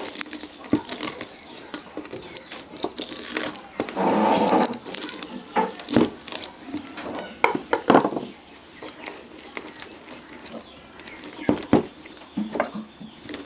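Old winding wire being pulled and torn out of a burnt ceiling fan coil: crinkling, scraping and irregular sharp clicks of wire and tool, with a denser rustling burst about four seconds in.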